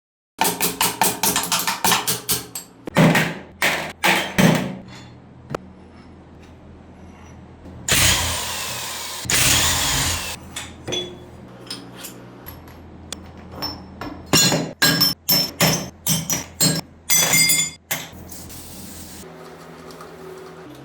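Hand tools working on metal motorcycle parts: a run of quick metallic knocks and hammer blows. A steady hiss runs for about two seconds near the middle, then a second dense run of strikes comes near the end.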